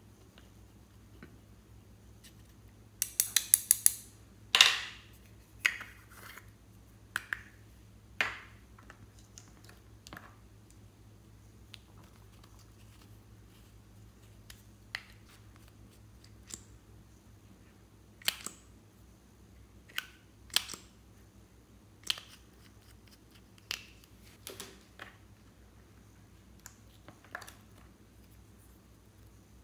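Sharp plastic clicks and taps of makeup containers and a small tool being handled: a pressed-powder compact scraped with a dotting tool, then a nail polish bottle and a lipstick opened. A quick run of clicks comes about three seconds in, followed by single clicks every second or two.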